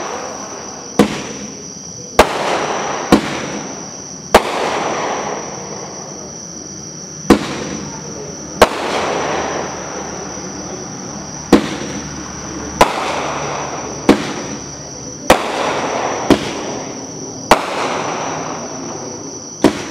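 Mad Ox OX5415 Two Minute Pro Ox Show in a Box, a 500 g consumer firework cake, firing a string of aerial shots. A sharp bang comes about every one to three seconds, around a dozen in all, each followed by a crackling hiss about a second long as the burst spreads.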